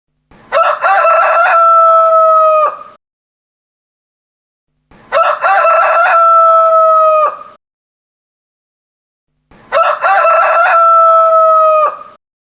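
Rooster crowing loudly three times, each crow about two and a half seconds long with a long held final note, evenly spaced with dead silence between; the three crows look identical, like one crow repeated.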